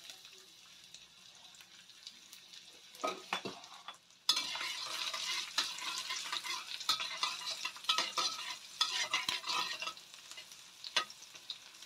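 Chopped garlic sizzling in hot oil in a stainless steel wok while a metal spatula stirs it, scraping and clicking against the pan. The sizzle is soft at first, then turns suddenly louder about four seconds in, with many quick spatula scrapes.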